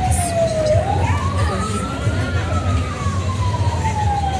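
A siren wailing slowly: one clear tone that glides down, turns and rises again about a second in, then falls slowly toward the end, over a steady low rumble.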